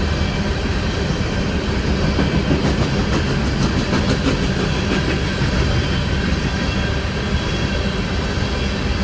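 Coal train cars rolling past with a steady, loud rumble, with a brief run of wheel clicks over the rails partway through.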